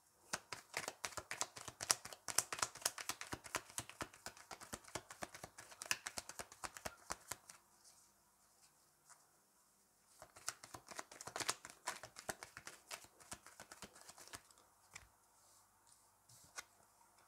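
A tarot deck being shuffled by hand: two runs of rapid card-riffling clicks with a short pause between them, then a few lighter clicks as a card is laid down on the cloth near the end.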